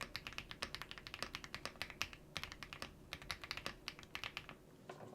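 Typing on a membrane keyboard: rapid, uneven key presses, several a second, that stop near the end.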